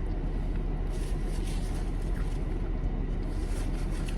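Steady low rumble of a car idling, heard from inside the cabin, with a few faint soft crackles around the middle.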